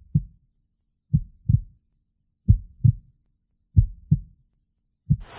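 Heartbeat sound effect: slow low double thumps, lub-dub, one pair about every 1.3 seconds.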